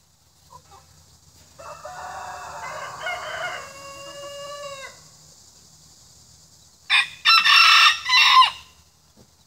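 Roosters crowing twice: a quieter crow with a long drawn-out ending, then about seven seconds in a much louder crow close by, broken into a few short pieces.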